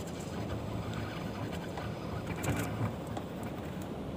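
Steady low rumble and wash of a small fishing boat at sea, with a few light clicks and knocks about two and a half seconds in.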